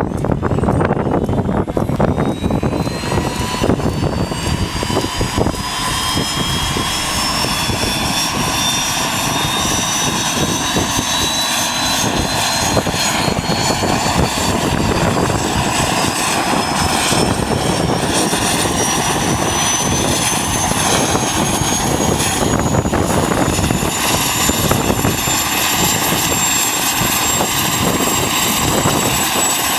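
Eurocopter EC120 Colibri's Turbomeca Arrius 2F turboshaft starting up: a turbine whine that rises steadily in pitch as the engine spools up, over the rumble of the main rotor gathering speed.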